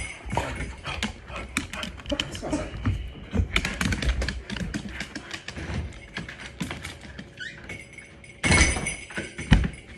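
Dogs moving about close to the microphone: a busy run of clicks, taps and scuffles of paws on a rug and hardwood floor, with a louder clattering burst near the end.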